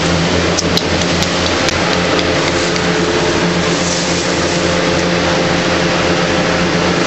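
A machine running steadily: a constant hum with a hiss of rushing air, and a few light clicks in the first few seconds.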